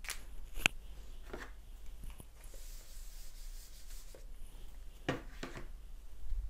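Felt eraser rubbing across a whiteboard, wiping off marker writing, in a few short scraping strokes with a sharp click near the start.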